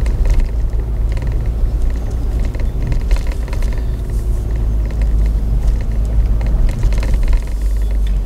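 Audi Q5 driving slowly over a rough dirt track, heard from inside the cabin: a steady low rumble from the engine and tyres, with frequent light knocks and rattles as the car jolts over the ruts.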